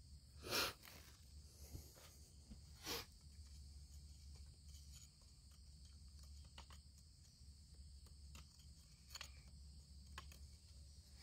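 A thin metal tool scraping and picking at rock and packed dirt while digging for Herkimer diamond crystals: two short, louder scrapes near the start, then a few light clicks and taps. A steady high insect drone runs underneath.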